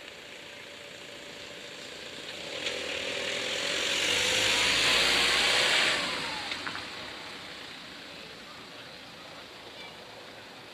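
Flatbed van driving past close by: engine and tyre noise swell to a peak and fall away, the pitch dropping as it goes by.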